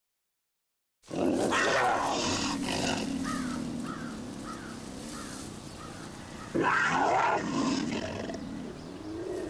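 A cougar growling: a long loud growl starting about a second in and fading over several seconds, then a second loud growl about six and a half seconds in.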